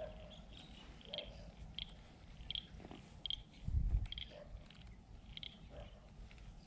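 Baitcasting fishing reel being wound in slowly during a lure retrieve, giving a faint short high tick about every three-quarters of a second. A dull thump about four seconds in is the loudest sound.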